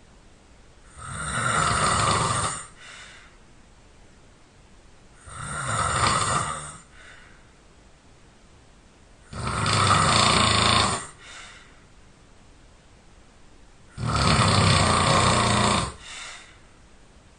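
A person snoring loudly: four long, rattling snores about four seconds apart, each followed by a short, softer breath.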